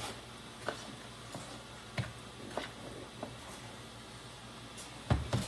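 A hand mixing wet food mush in a plastic tub: soft squishing with scattered light clicks and taps, and a louder thump near the end.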